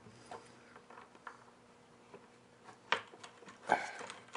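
Faint scattered clicks and handling knocks of a plastic spigot against the wall of a plastic bucket as a washer and nut are fitted on the inside, with a sharper click about three seconds in and a louder knock shortly after.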